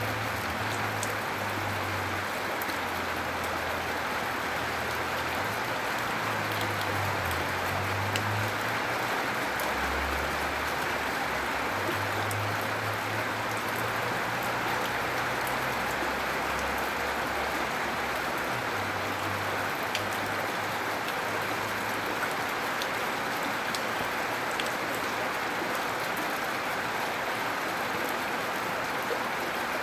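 Steady, gentle rain with fine drop ticks. A low hum changes pitch now and then through the first two-thirds.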